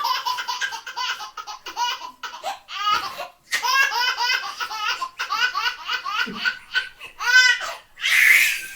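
A baby laughing hysterically in repeated bursts of belly laughs and giggles, breaking off briefly a little past three seconds in. Near the end a man sneezes loudly.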